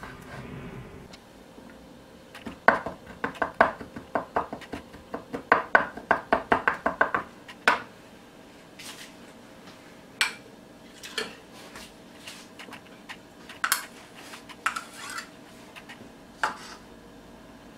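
Chef's knife chopping garlic on a wooden cutting board: a quick run of knife strikes for about five seconds, then scattered taps and scrapes of the blade on the board.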